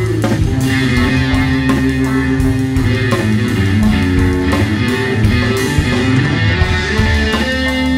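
Live rock band playing an instrumental break, an electric guitar holding and sliding sustained lead notes over the band.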